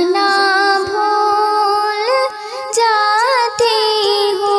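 A woman singing a Hindi-Urdu ghazal, drawing out long held notes with ornamented turns and slides in pitch.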